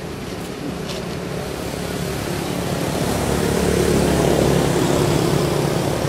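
A motor engine's steady drone, growing louder through the first half and easing slightly near the end.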